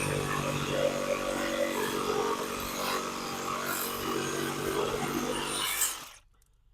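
A motor running steadily, then cutting off abruptly about six seconds in.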